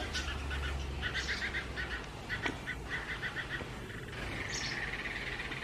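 House sparrow chicks begging for food, giving quick runs of short, high chirps again and again as the mother sparrow brings a caterpillar.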